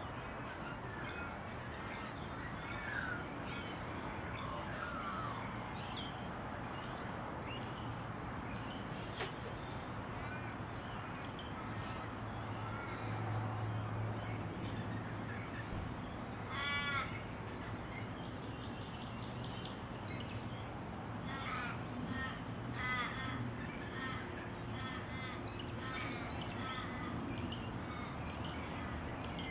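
Crows cawing outdoors, a series of harsh calls that is loudest about halfway through and comes again as a quick run of caws later on. Fainter bird calls sound early, and a low steady hum runs underneath.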